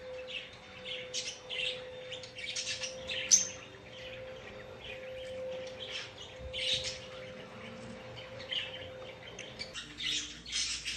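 Fischer's lovebirds chirping: many short, high, repeated chirps, with one louder chirp a little over three seconds in. A steady hum runs underneath and stops near the end.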